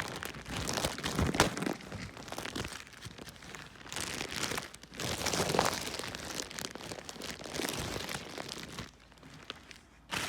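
Plastic packaging bag crinkling and rustling in irregular bursts as it is handled and opened, quieter near the end.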